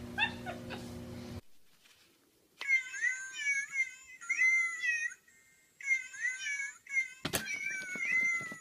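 A treadmill's motor humming steadily for the first second or so, then a cat mewing in repeated high-pitched calls, with one sharp knock about seven seconds in.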